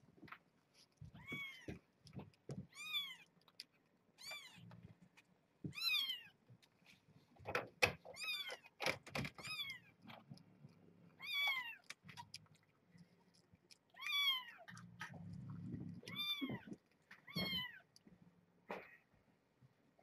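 Newborn kittens, about two days old, mewing: about ten short, high-pitched cries that rise and fall, repeated every second or two, with a few soft knocks in between.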